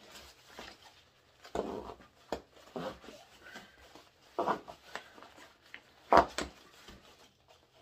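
Nylon compression straps on a sleeping bag stuff sack being yanked tight through their buckles, compressing the bag: short irregular bursts of webbing rasping and nylon rustling with scattered clicks, the sharpest burst near the end.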